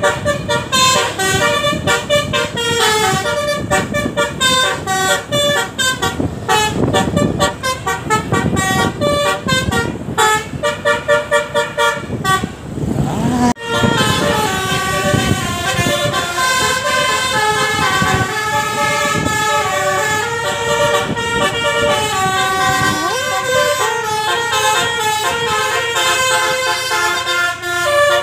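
Basuri 'telolet' bus horn playing a tune. For the first twelve seconds it plays rapid short toots at changing pitches, then breaks off briefly about 13 seconds in, then plays a melody of longer held notes.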